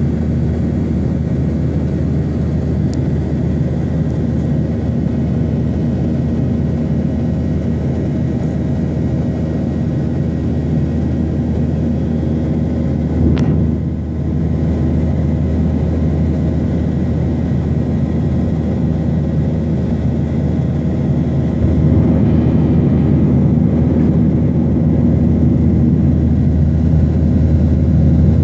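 Jet airliner cabin noise: a steady low engine rumble with a few steady tones. There is one sharp click about halfway through, and the rumble grows slightly louder about two-thirds of the way in.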